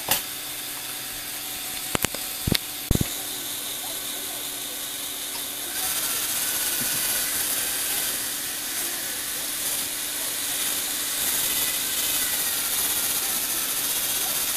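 Lego Technic motors and gear trains running, a steady mechanical whir that gets louder about six seconds in, with a few sharp plastic clicks in the first three seconds.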